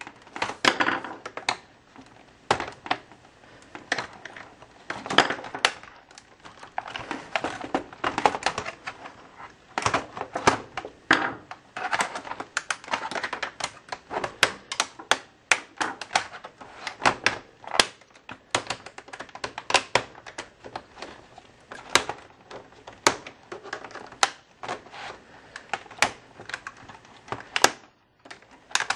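Screwdriver and hands working at a stuck screw in a laptop's plastic case: irregular clicks, taps and scrapes throughout, with the screw still refusing to come out.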